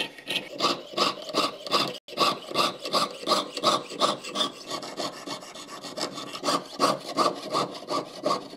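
Jeweller's saw cutting sterling silver sheet on a wooden bench pin: steady back-and-forth rasping strokes, about three a second, that stop at the end.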